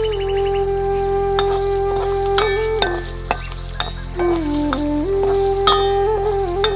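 Slow flute-like background melody of long held notes with small slides in pitch, over scattered sharp clicks and scrapes and a steady hiss.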